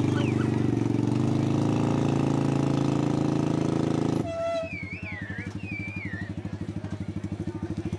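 A 360 sprint car's V8 engine idling loudly. About four seconds in the sound drops abruptly to a quieter, rapidly pulsing idle.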